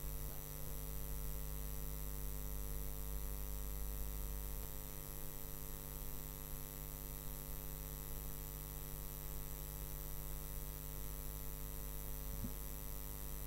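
Steady electrical mains hum: a low, unchanging drone with a stack of even overtones.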